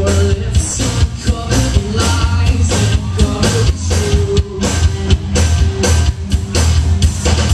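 Live rock band playing loudly: a singer over electric guitars and a drum kit, with a steady drum beat and held sung notes.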